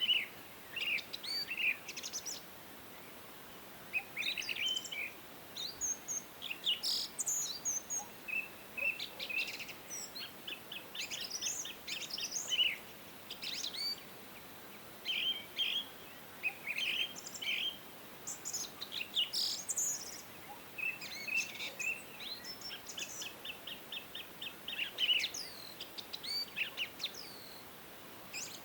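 Several small songbirds chirping and trilling in short, overlapping bursts, over a faint steady rush of a mountain stream.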